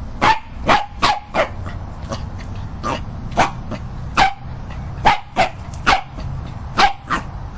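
A dog barking repeatedly: about a dozen short, sharp barks, some in quick pairs and some alone, at an uneven pace.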